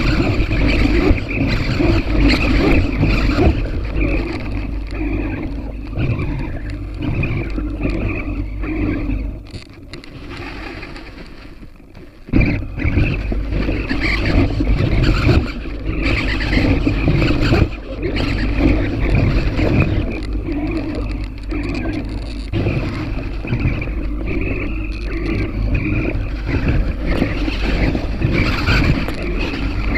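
Small electric motor and propeller of an FPV model aircraft running steadily, with wind rush over the onboard microphone. About ten seconds in the motor drops to a much quieter level for a few seconds, then comes back on suddenly at full power.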